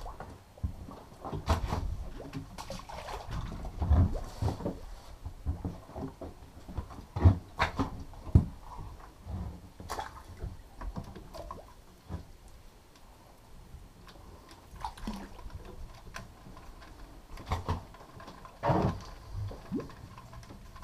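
Irregular knocks, clunks and thumps of fishing gear being handled on a boat's deck, a few sharp ones standing out, over a low rumble with water sounds.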